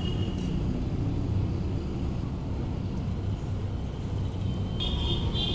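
Steady low outdoor rumble, with a sharp click near the end followed by a high, thin tone.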